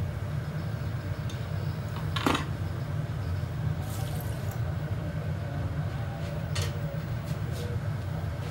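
Steady low roar of a glassblowing hot shop's burners, with short hisses and sizzles as a wet newspaper pad and water meet the hot glass on the blowpipe: a sharp one about two seconds in, a longer one about four seconds in and another about six and a half seconds in.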